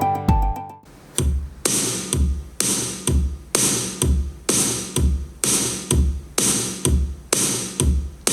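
Electronic music with a drum-machine beat played through a JVC SP-V805T three-way speaker with built-in subwoofer. Melodic notes stop just under a second in, then deep kick drums and noisy percussion hits come in about twice a second.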